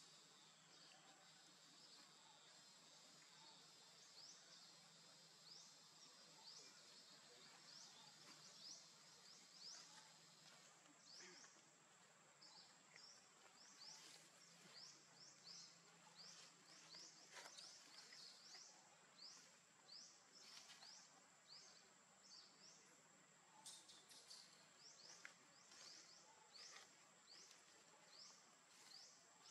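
Faint forest ambience: a steady high-pitched insect drone, with a run of short rising chirps repeating about twice a second.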